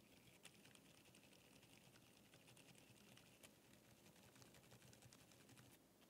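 Faint, muffled typing on a Mode Eighty mechanical keyboard fitted with lubed Outemu Silent Sky silent tactile switches: a quick, soft patter of keystrokes with no sharp clacks.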